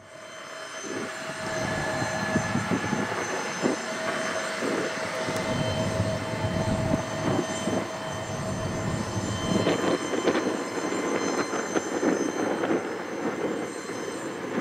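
Airbus A330-300's Rolls-Royce Trent 700 turbofans on final approach to land: a steady jet whine over a broad rushing rumble, fading in at the start. About two-thirds of the way through the whine drops away, leaving a rougher rumble.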